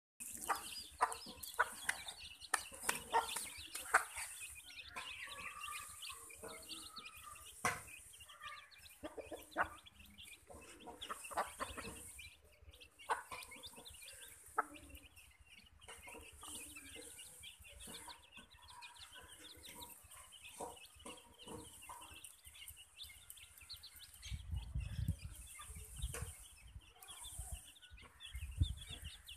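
Chickens clucking while a brood of chicks peeps steadily as they peck at grain scattered on concrete. Short sharp clucks and clicks come thickest in the first half, and low rumbling thumps come near the end.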